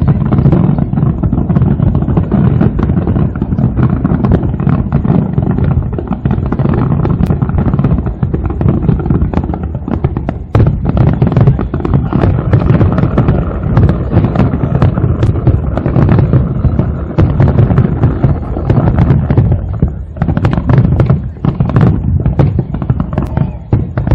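Aerial fireworks display: a dense, continuous barrage of shell bursts and crackle, with many bangs overlapping and only brief lulls about ten and twenty seconds in.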